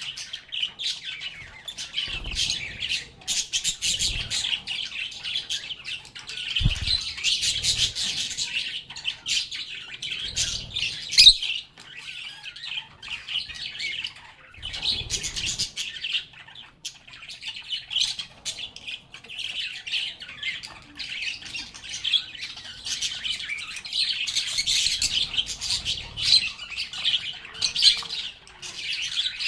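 A group of lovebirds chattering without pause in high, overlapping chirps and squawks. A few low thumps and clicks sound through it, the sharpest about eleven seconds in.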